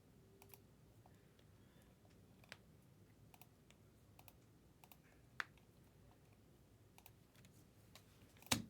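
Faint, scattered clicks of a computer keyboard and mouse, a few seconds apart, with one sharper click just before the end.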